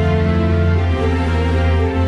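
Background music: held chords that change roughly once a second.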